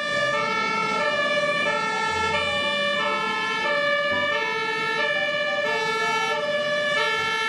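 Two-tone fire engine siren alternating steadily between a high and a low note, each held about half a second.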